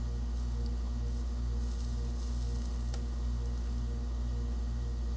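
Steady electrical mains hum with a low throb about twice a second, and a faint click about three seconds in.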